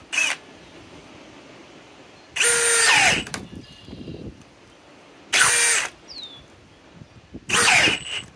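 Milwaukee M18 Fuel Gen 4 hammer drill boring a 1¼-inch spade bit into a wooden board in four short bursts of motor whine. Its pitch sags under load in the longest burst. This is the drill struggling to drive the big bit on its high-speed setting.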